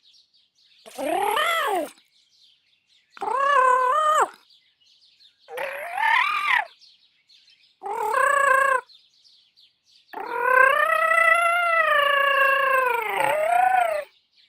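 Cute robot-droid voice from the 'Bleep' sound library making five 'exertion' vocalizations: four short warbling calls about a second each, then one long strained call of nearly four seconds that dips in pitch and climbs back near the end.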